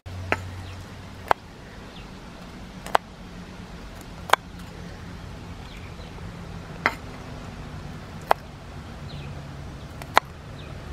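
A cleaver chopping fresh green peppercorn sprigs on a wooden chopping board: seven sharp knocks, spaced unevenly about one to two and a half seconds apart.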